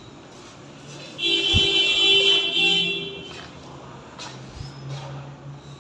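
A vehicle horn blares with a steady, unchanging pitch for about two seconds, starting a little after a second in.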